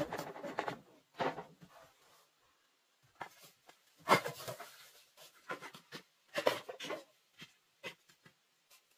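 Split bamboo strips rustling and clattering as a bundle is carried and then handled and set down, in irregular short bursts with the loudest knock about four seconds in.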